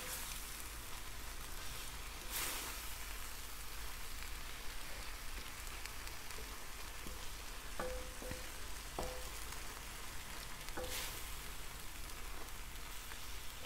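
Spinach stew sizzling and bubbling in an enamelled cast-iron braiser while a wooden spoon stirs through it, with a few light knocks of the spoon against the pan about eight to eleven seconds in.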